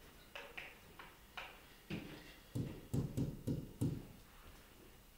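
A few faint clicks, then about five soft knocks in quick succession near the middle, from a stylus or pen tip striking the glass of an interactive touchscreen whiteboard as an equation is written.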